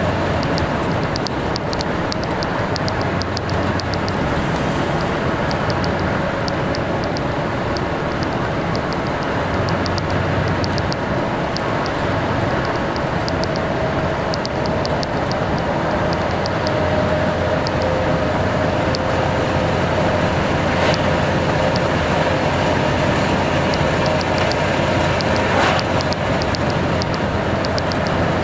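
Steady in-cab noise of a vehicle driving along at road speed: engine drone and tyre noise, with a light, rapid ticking.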